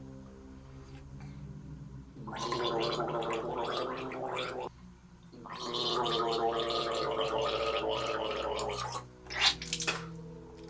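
A man gargling a salt and baking-soda solution for a sore throat, in two bouts of a few seconds each with a short break between them. A brief sharp sound follows near the end.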